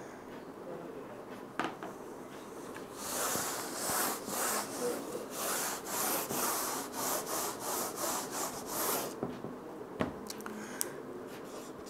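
Eraser rubbed back and forth across a whiteboard, wiping off marker writing in a quick run of strokes lasting about six seconds. A single sharp knock follows shortly after.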